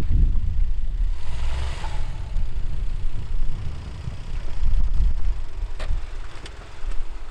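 Wind buffeting the microphone: a gusting low rumble that swells and dips, with two short clicks near the end.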